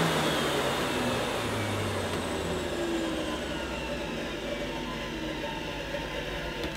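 Hoover Sensotronic System 3 vacuum cleaner motor winding down after switch-off, its whine falling steadily in pitch and fading away.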